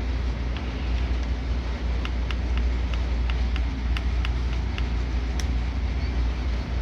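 Steady low rumble and hiss with a run of light, evenly spaced ticks, about three a second, through the middle.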